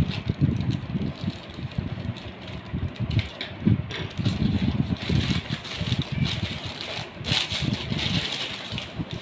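Thin plastic courier bag crinkling and rustling as it is pulled open by hand, with many dull low thumps from the handling.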